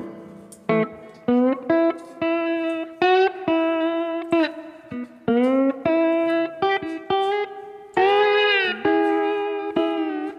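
Background music: an electric guitar playing single plucked notes, some of them bending up or down in pitch.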